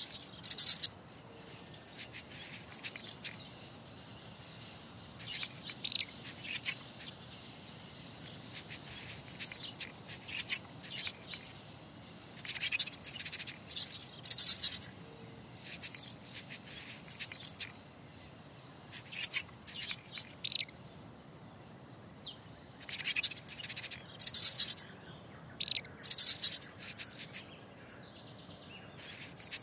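Mouse squeaking sound effect: rapid, high-pitched squeaks in short clusters, repeated every second or two over a faint steady background hiss.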